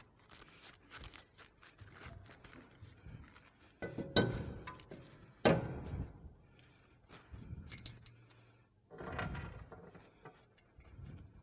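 A few knocks and clunks as a new brake disc is handled and seated onto the wheel hub, metal against metal. The sharpest knock comes about halfway through.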